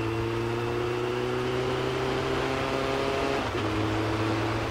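Suzuki Bandit 1200S inline-four engine running on the move, its pitch easing slightly down, with a short break about three and a half seconds in, over steady wind and road noise.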